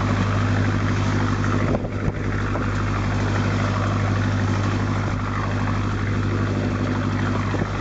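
Fishing trawler's engine running steadily at cruising speed, a deep even drone, over the rushing hiss of the churned wake water.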